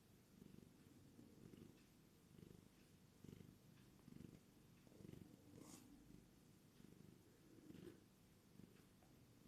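Tortoiseshell cat purring softly, the purr swelling and easing about once a second with each breath.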